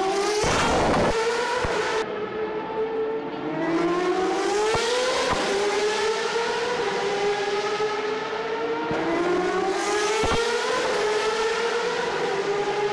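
High-pitched open-wheel race car engines accelerating along the circuit. The engine pitch rises and levels off three times as cars pass. A short rush of noise comes about half a second in.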